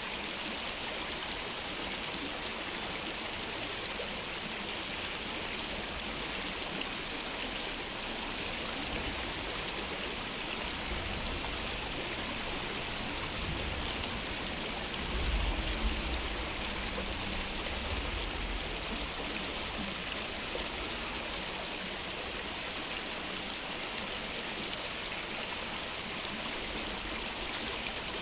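Steady rushing of stream water, an even hiss with no breaks. A low rumble swells under it around the middle, loudest a little past halfway, then fades.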